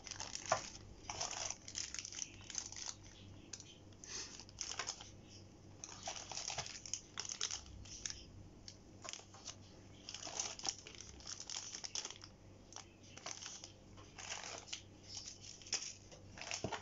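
Clear plastic bags of action-camera mounts crinkling in irregular bursts as they are handled, with an occasional sharp click.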